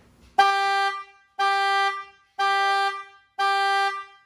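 Chevrolet Spark's car horn honking in a steady, evenly timed series, about one honk a second, four in a row, each the same pitch and length: the regular pulse of the car's alarm or panic signal.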